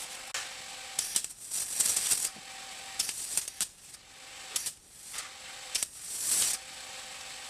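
Welder crackling through a series of short tack welds on a thin sheet-metal patch plate, about five bursts of a second or less each with pauses between.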